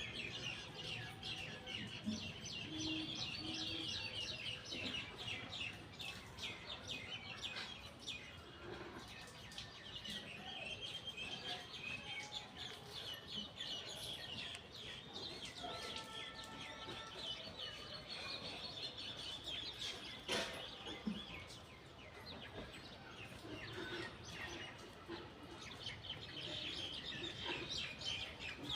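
Many small birds chirping and trilling at once, a dense chorus of high, quick calls, with a short sharp knock about two-thirds of the way through.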